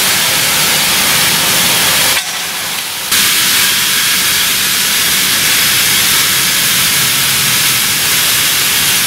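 Overhead fire sprinkler system discharging, water spraying from the ceiling pipework with a loud, steady hiss. The hiss drops briefly a little after two seconds in, then comes back at full level.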